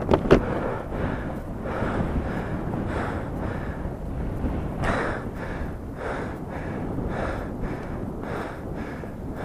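A man breathing hard and panting after running up a steep hill, short heavy breaths roughly every half second to a second, with a sharp click near the start.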